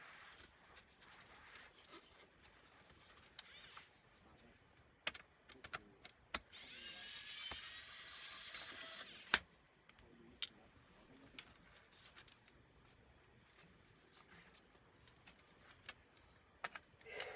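Small clicks and taps of laptop parts and tools being handled during disassembly, with a harsh rasping noise lasting about three seconds in the middle that ends in a sharp click.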